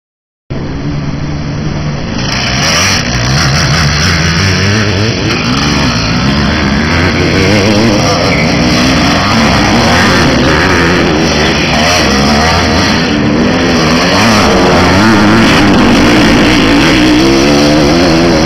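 Several 500cc motocross bikes of different model years revving as they climb out of a dip on a dirt track. The engines overlap loudly, their pitches rising and falling, starting about half a second in.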